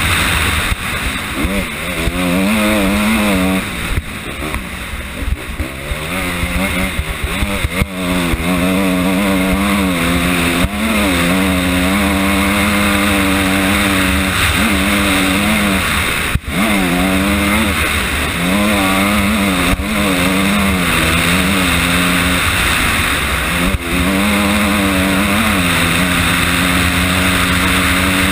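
Honda CRF250R's single-cylinder four-stroke engine being ridden hard, revs rising and falling again and again with throttle and gear changes, under a steady rushing hiss. The engine eases off for a few seconds not long after the start, and a few sharp knocks cut through.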